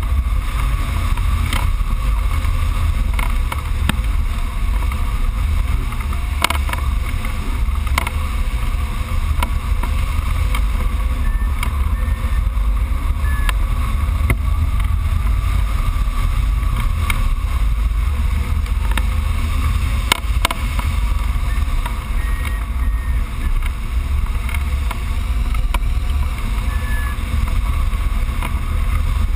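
Wind buffeting the microphone of a camera on a hang glider in flight: a steady, loud low rumble of airflow.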